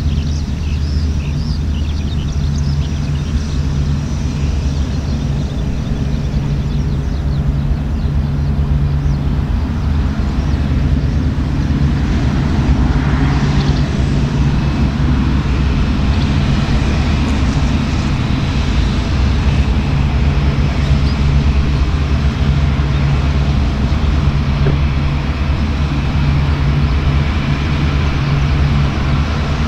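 Boeing 787-8 airliner's Rolls-Royce Trent 1000 turbofans running at taxi power: a steady low drone with engine hiss above it as the jet taxis past. The hiss swells briefly about halfway through.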